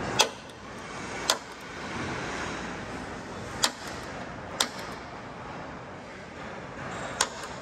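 Five sharp knocks, spaced unevenly, over a steady hiss of room noise in a large hall.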